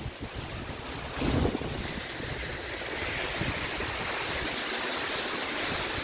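Waterfall rushing close by, a steady even roar of falling water, with wind buffeting the phone's microphone. A brief louder sound comes just over a second in.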